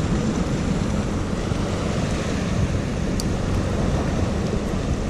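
Steady wind rumbling on the microphone, mixed with the wash of surf on the rocks.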